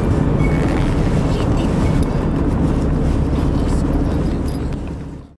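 Steady road and engine rumble of a car driving, heard from inside the cabin, fading out over the last second.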